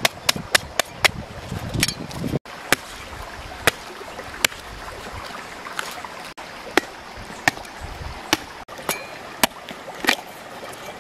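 A large knife chopping into the fibrous husk of a green coconut: sharp strikes, several in quick succession at first, then about one a second.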